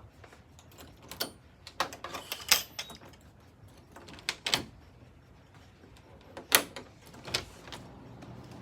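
Water dripping from a leaking ceiling during rain, single drops landing with sharp splats at irregular intervals: the sign of a roof leak that repeated roof repairs have not cured.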